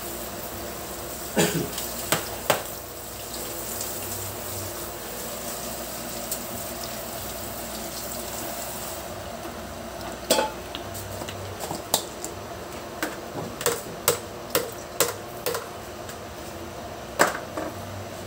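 Metal wok heating on a gas burner with a low steady hiss, with sharp clinks and knocks against the pan: a few about a second and a half in, then a quick run of them through the second half as soy sauce is added to the raw chicken and pork.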